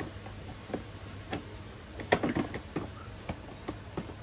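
Scattered light clicks and knocks of a tool kit case and its tools being handled, the sharpest knock about two seconds in.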